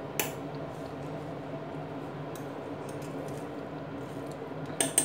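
A fork-like utensil turns cooked rice in a pressure cooker pot, with soft squishing and a few faint ticks against the pot. Near the end come several sharper clinks of utensil on pot. A steady low hum runs underneath.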